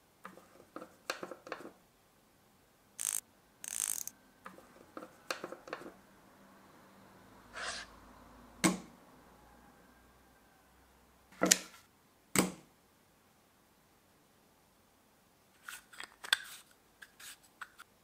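Metal parts of an old manual typewriter being handled and fitted by gloved hands: scattered small clicks and short scrapes. Sharp knocks come about 9, 11.5 and 12.5 seconds in, and a quick cluster of small clicks comes near the end.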